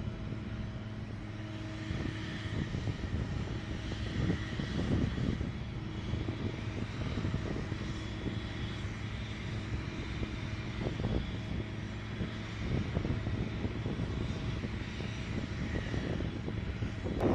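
Aircraft engine running steadily: an even drone with a constant low hum.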